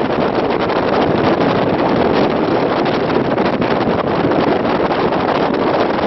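Steady, loud road and wind noise from a moving car, with wind buffeting the microphone.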